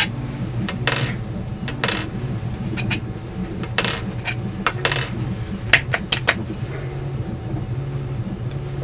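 Small metal nuts and screws clinking against a 3D-printed plastic plate as it is taken apart by hand: a handful of scattered light clicks, several with a brief metallic ring, over a steady low hum.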